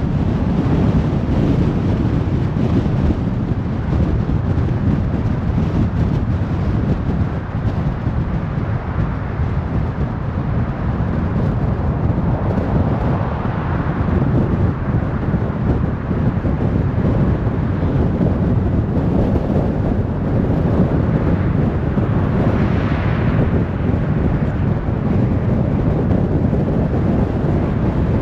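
Highway traffic: a steady rush of cars and tyre noise, with vehicles swelling past about halfway through and again near the end.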